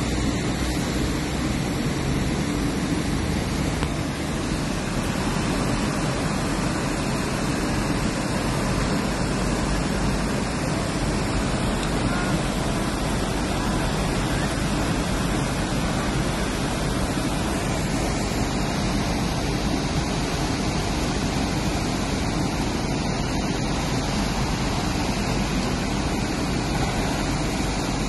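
Torrential rain pouring down in a steady, even hiss that does not let up.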